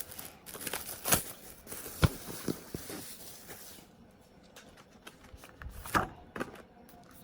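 Handling of a K-pop album's paper and plastic contents and photocards: rustling with a few sharp clicks and taps, loudest about a second in, two seconds in and near six seconds.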